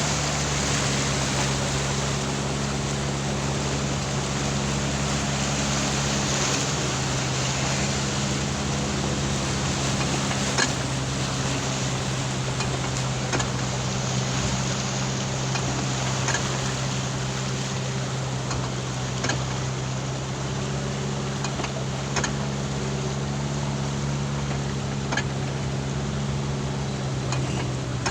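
Vehicle engine running with a steady low hum under a constant rushing noise, with a few light clicks now and then.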